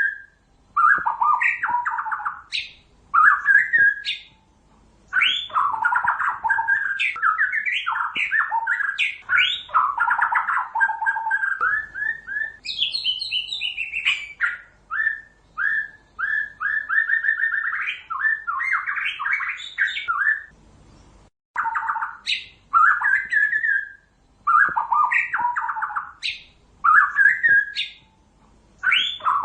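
White-rumped shama singing: loud, varied phrases with short pauses between them, and a long run of rapid repeated notes in the middle.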